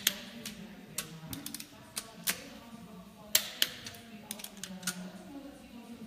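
Torque wrench clicking in sharp, irregular clicks as it tightens the cylinder-head stud nuts on a VR6 turbo engine block.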